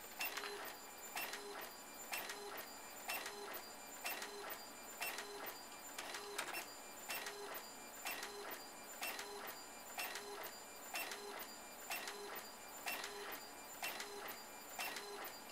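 Epson Stylus Color 740 inkjet printer printing a photo at 720 dpi. The print head carriage shuttles back and forth in a regular rhythm of passes, about three every two seconds.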